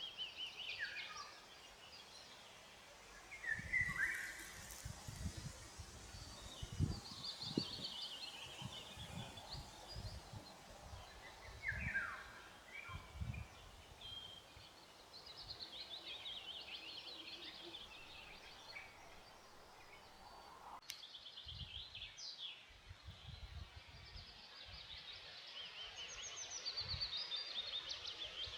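Songbirds singing in woodland: repeated trilled and falling phrases from several birds, over irregular low rumbling bumps.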